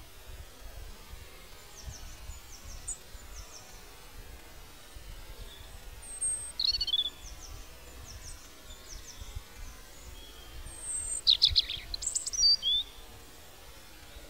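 Birds calling outdoors: faint short high chirps repeating, with louder sharp calls about halfway through and a cluster of calls near the end, over a low steady background rumble.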